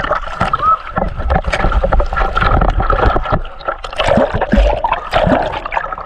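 River water splashing and sloshing at the microphone of a camera held at the surface by a swimmer, with many irregular splashes over a low rumble.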